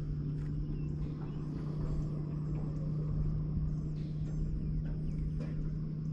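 A steady low hum with rumble beneath it, and a few faint high bird chirps scattered over it.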